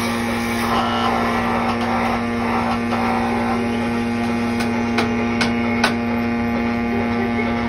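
Steady electric machine hum at one constant pitch, as from a motor running at even speed, with four short sharp clicks or knocks about two-thirds of the way through.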